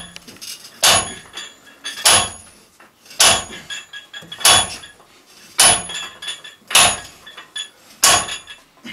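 A hammer striking the top of a steel well pipe to drive it into the ground, seven metallic clangs about one every 1.2 seconds, each with a short ring, echoing in a small concrete room.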